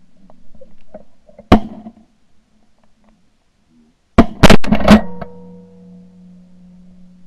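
Shotgun shots at flying waterfowl, recorded from a camera on the barrel. One blast about a second and a half in, then a quick string of three blasts about four to five seconds in.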